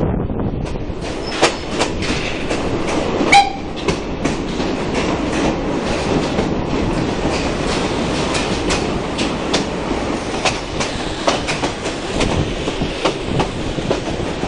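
Heritage steam-train carriages rolling through a stone tunnel. A steady rumble with wheels clicking over rail joints echoes off the tunnel walls, and a brief shrill note sounds about three seconds in.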